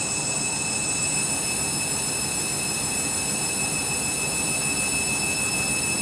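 Candy washing machine in a suds lock on the final rinse, running steadily with a high whine over a constant rushing noise, sounding clogged up with suds.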